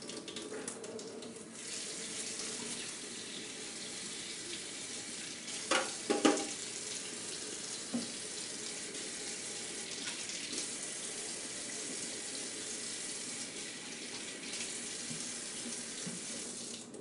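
Water running steadily from a tap into a sink, then shut off near the end. Two or three short knocks a little after halfway through the first half.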